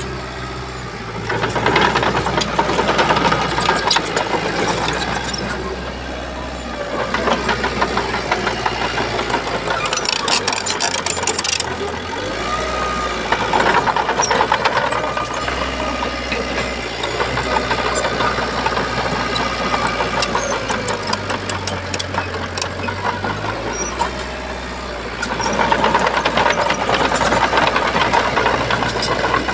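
Shantui bulldozer's diesel engine working, its sound swelling about four times for a few seconds each as it loads up, then easing back.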